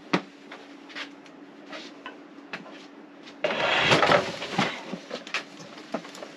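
A heavy DeWalt 735 benchtop thickness planer being handled: small knocks and rattles as it is lifted, then about three and a half seconds in a loud thump and scrape as it is set down and slid onto a plywood cart top, followed by a few more knocks.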